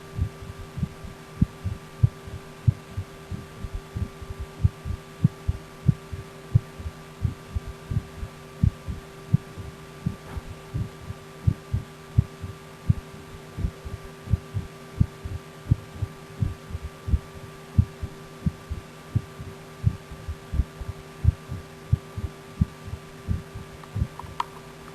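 Human heartbeat heard through a stethoscope: a steady rhythm of low thumps over a constant hum.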